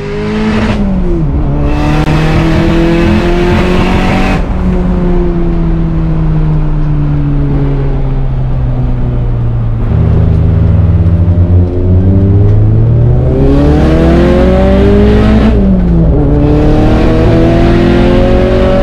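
Race car engine heard from inside the stripped cabin as the car drives, its revs rising and falling. About three-quarters of the way through the pitch drops sharply, as at a gear change, and climbs again.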